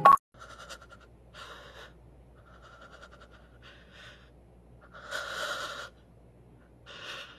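A person slowly easing under a duvet: quiet, intermittent rustles of bedding and soft breaths, the longest and loudest about five seconds in.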